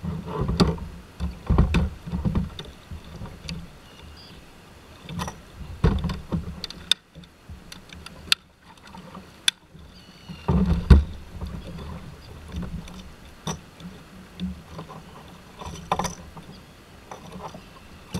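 Fishing gear being handled aboard a kayak: irregular clicks, rattles and knocks, with hollow thumps against the hull. A clear plastic tackle box is taken up and rummaged through, with a loud burst of knocking about ten seconds in.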